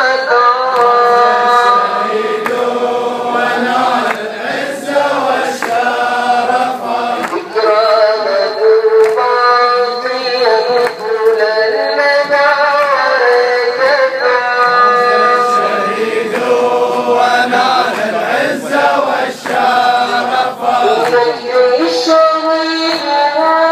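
A chanted mourning song with long held notes, sung continuously.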